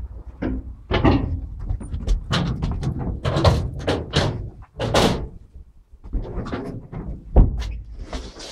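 Irregular knocks and clunks of metal in the cab of a TE3 diesel locomotive, like doors, panels and fittings being handled, with one heavy thump about seven and a half seconds in.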